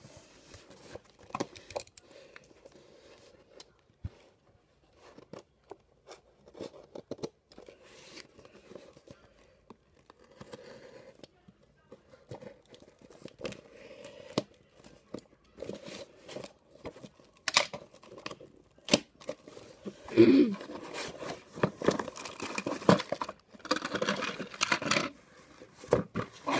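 A taped cardboard box being opened with a box cutter: scattered scrapes and clicks of the blade and cardboard, then louder tearing of packing tape and rustling of cardboard flaps and plastic packaging in the last third.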